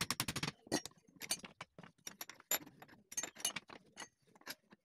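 Quick bursts of sharp taps and clinks, a small hammer knocking the joints of a small teak-wood stool frame together.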